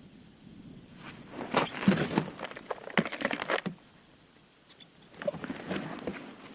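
Two spells of crinkling, crunching rustle made of many quick crackles, the first about a second in and lasting roughly two and a half seconds, the second near the end.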